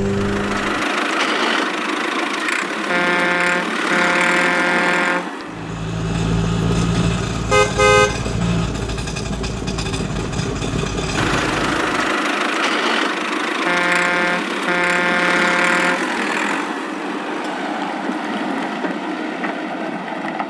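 Cartoon vehicle sound effects: a car horn honks twice, a low engine rumble runs for several seconds with a quick pair of short beeps in the middle, and then the horn honks twice more.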